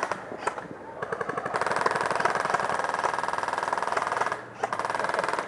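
Airsoft guns firing on full auto as a fast, even rattle: a short burst at the start, then a long burst of about three seconds that stops shortly before the end.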